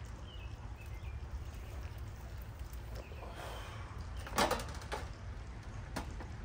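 Plastic food containers handled on a grill's side shelf: a short clatter about four seconds in and a single click near the end, over a steady low rumble, with a few faint bird chirps at the start.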